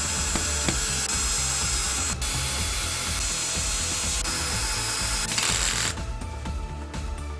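Small electric power tool running at steady speed, briefly cutting out about two seconds in and stopping about six seconds in, over background music with a steady beat.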